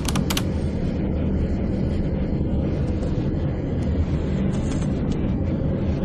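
Steady low road and engine rumble inside a moving car's cabin at highway speed. Two sharp typing clicks right at the start.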